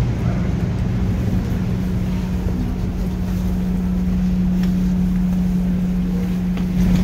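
Steady low hum and rushing air of an indoor air-conditioning unit, running constantly.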